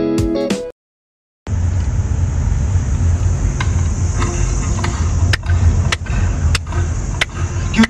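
Guitar music breaks off less than a second in, and after a moment of silence comes the steady low rumble of road noise inside a moving car's cabin. Over it come sharp hand claps, sparse at first and then in an even beat about every 0.6 seconds.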